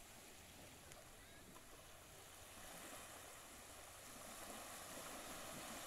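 Faint, gentle waves lapping on a sandy shore from a very calm sea: a soft, steady wash of noise that swells slightly now and then.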